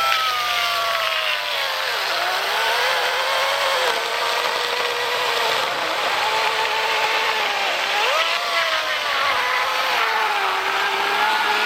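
Oregon self-sharpening battery-powered chainsaw cutting through a log. The motor whine drops in pitch as the chain bites into the wood, rises and falls again about eight seconds in, and climbs back up near the end as the cut finishes.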